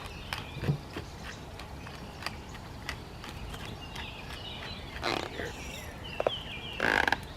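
Wild birds chirping and calling, many short gliding calls overlapping, with scattered sharp clicks, a brief rustle about five seconds in and a louder one near the end.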